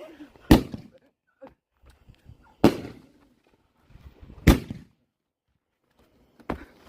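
Fireworks going off: four sharp bangs about two seconds apart, each with a short echo tail, with a few small pops between them.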